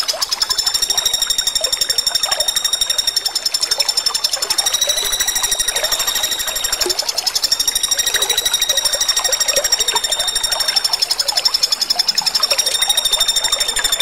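Pelatuk bawang (common flameback woodpecker) giving a continuous, rapidly pulsing high buzzing trill that wavers slightly in pitch, the electric 'konslet' style of call.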